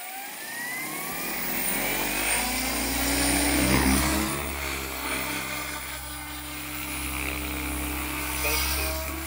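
OMPHOBBY M4 MAX electric RC helicopter spooling up: the motor's whine rises in pitch over the first couple of seconds, then the rotor settles into a steady hum. It is loudest about four seconds in.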